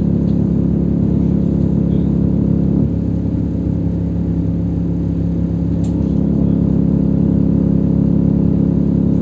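LiAZ 529265 city bus engine and drivetrain running steadily as the bus drives, heard from inside the passenger cabin; about three seconds in its pitch steps down a little.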